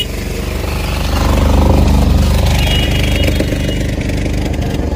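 A motor engine idling with a fast, even pulse, growing somewhat louder about a second in.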